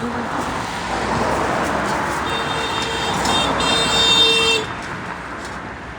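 A road vehicle passing close by, its noise swelling and then dropping away suddenly, with a horn sounding steadily for about two seconds as it goes by.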